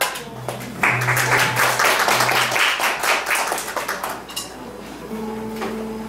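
A small club audience applauding for about three seconds. Near the end, a steady note from an amplified instrument is held.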